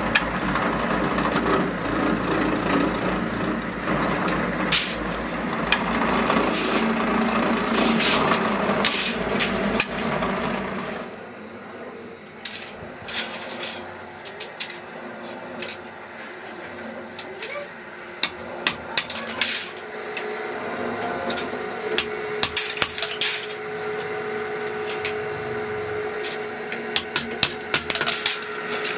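An electric drill press runs and bores into steel knife blanks, a dense steady machine noise with a low hum, which stops suddenly about eleven seconds in. After that, a hand hammer strikes steel knife blades on a metal anvil block in sharp, irregular blows, some in quick runs of several strikes.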